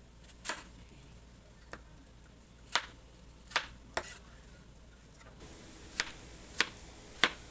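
Kitchen knife slicing peeled Chinese yam (shan yao) lengthwise on a cutting board: about eight sharp, unevenly spaced taps of the blade.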